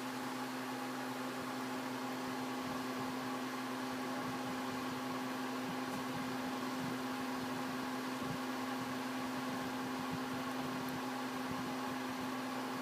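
Steady mechanical hum with one constant low tone, unchanging throughout.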